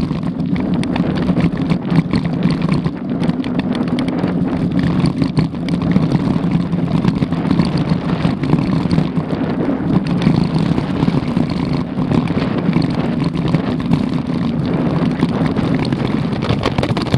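Mountain bike rolling over a loose gravel dirt track: a steady low rumble of tyres on stone with constant small knocks and rattles from the bike and its camera mount, and wind on the microphone.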